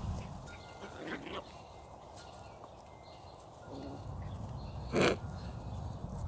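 A small dog gives one short, sharp bark about five seconds in, with a faint brief yelp about a second in, while small terrier dogs and puppies play together on grass.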